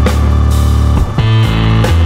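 Loud background rock music with drums and guitar, its bass line changing note about a second in.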